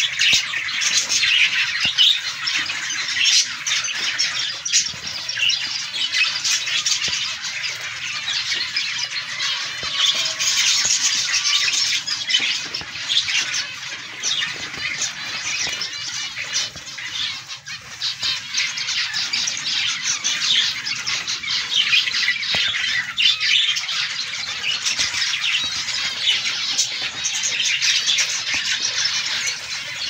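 A colony of caged zebra finches calling: many short, high calls overlap into a steady chatter.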